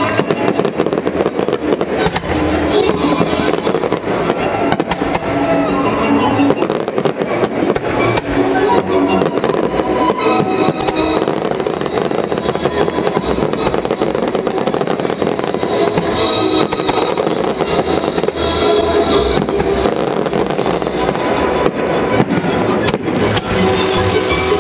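Aerial fireworks going off in a rapid, unbroken string of bangs, with music playing underneath.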